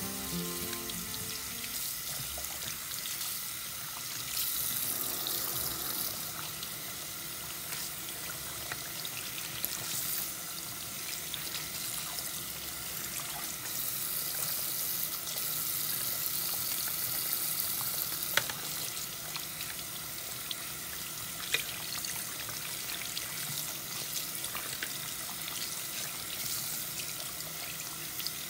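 Tap water running steadily into a sink, splashing over doll hair being rinsed and worked by hand under the stream, with a few small knocks.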